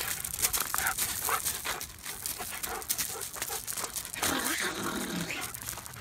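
A husky making a string of short vocal sounds, with a longer call falling in pitch about four seconds in.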